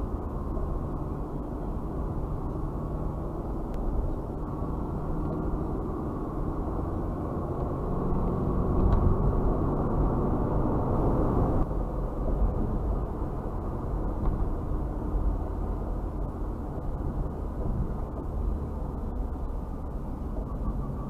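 Muffled road and engine noise of a car driving, picked up inside the cabin by a windshield dashcam: a steady rumble that shifts abruptly in tone about twelve seconds in.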